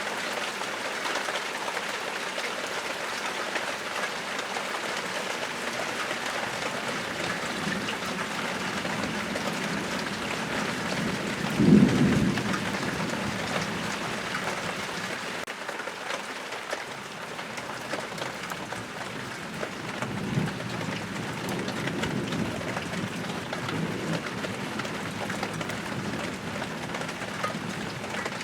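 Rain falling steadily, with a sudden loud clap of thunder about twelve seconds in that fades over a second or two, and softer rolls of thunder some eight seconds later.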